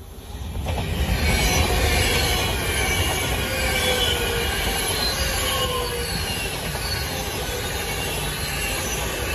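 Passenger train passing at speed close by. A loud rush of wheels on rail and air builds quickly within the first second and then holds, with several high whining tones running over it.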